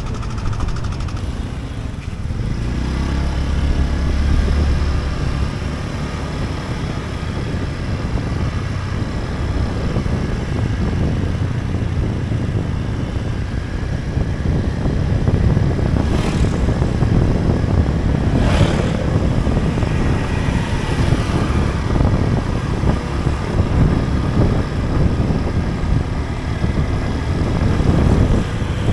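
Riding pillion on a motor scooter: the scooter's small engine running under steady wind and road noise, with two brief whooshes past the middle as oncoming motorbikes go by.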